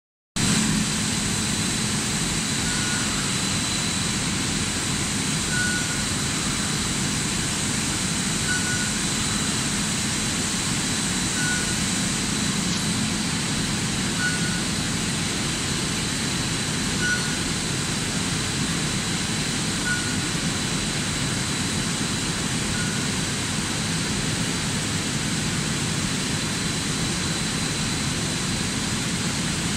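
Copper wire stranding machinery running steadily in a cable factory: an even mechanical din with a constant hum and a thin high whine. A short beep-like tone repeats about every three seconds.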